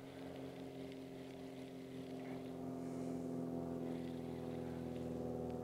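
A boat motor humming at a steady, even pitch, growing a little louder over the first few seconds and then holding steady.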